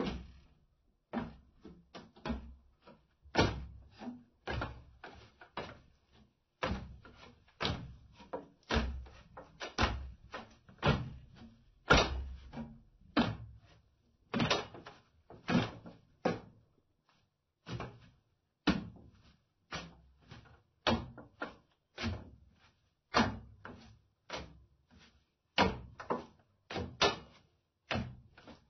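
Footsteps in slippers on wooden stairs: a steady run of soft knocking steps, often in quick pairs, about one to two a second, with a few short pauses.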